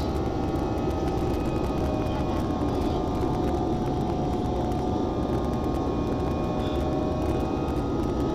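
Steady jet airliner cabin noise during the climb after takeoff: the drone of the wing-mounted jet engines and the rush of air past the fuselage, heard from a seat beside the wing, with a few faint steady whining tones on top.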